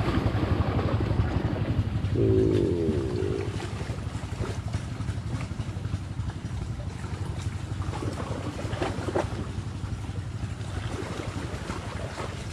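Steady low rumble of wind buffeting an action camera's microphone outdoors, with a brief voice about two seconds in.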